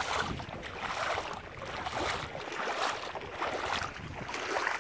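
Footsteps wading through shallow water, each step splashing and sloshing, about two steps a second.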